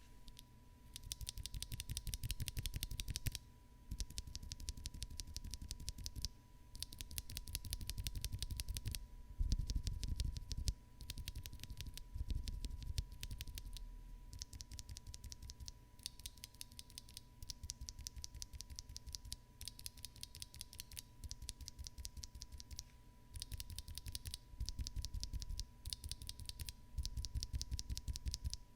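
Mechanical keyboard with Frog linear switches being typed on fast, a dense run of key clicks and clacks in stretches of a few seconds with short breaks between them.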